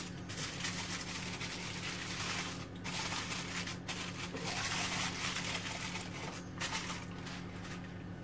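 Aluminium foil crinkling as it is pressed and folded by hand around an ovenproof mould, with a few brief pauses.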